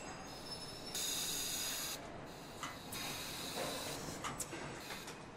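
Compressed air hissing from pneumatic assembly equipment for about a second, starting about a second in, then scattered light clicks and knocks of parts being handled over a steady factory hum.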